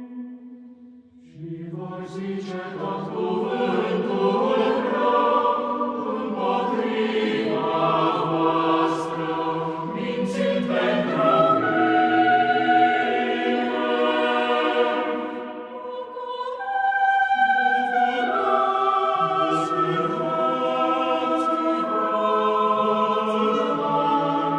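Choir singing held chords in several voices, coming in about a second in, with a brief lull near the middle.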